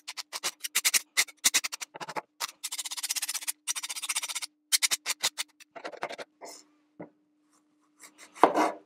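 A chef's knife blade drawn repeatedly along a honing rod: a series of quick metallic scraping strokes, running fastest in a rapid run through the middle. Near the end the knife cuts into an apple on a wooden cutting board.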